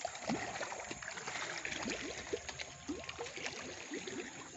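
River water in a fast current gurgling and lapping against a floating fish cage, with many small irregular bubbly plops and ticks.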